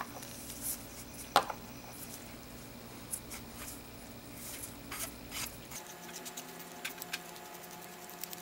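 Small brass binocular eyepiece tubes and rings handled and fitted together in gloved hands: scattered light metallic clicks, taps and short scrapes, with one sharper click about a second and a half in.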